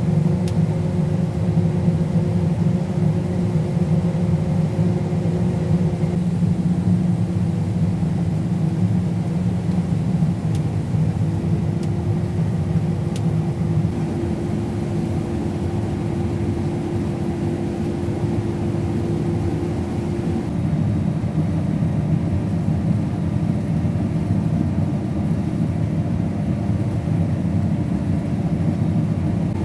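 Combine harvester running steadily while harvesting soybeans: a continuous low engine and machinery drone whose steady tones shift slightly in pitch a few times.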